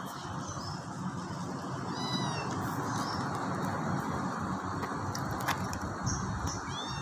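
Cat meowing: a short high-pitched mew about two seconds in and another at the very end, over steady background noise.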